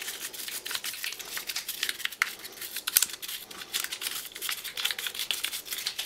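Toothbrush bristles scrubbing a wet, hard plastic Dyson V6 filter-unit part in quick, scratchy strokes.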